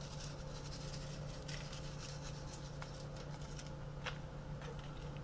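Faint rustling and light ticks of a seasoning packet being handled and shaken out, over a steady low hum.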